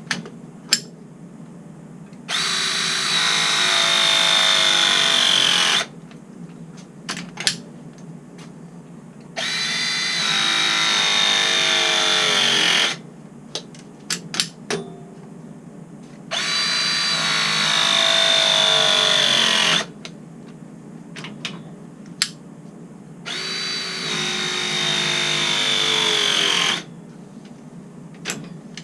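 Battery-powered press tool crimping copper press fittings four times, each press a motor run of about three and a half seconds whose whine drops in pitch as the jaws close, then stops. Short clicks and taps between presses as the jaws are set on the next fitting.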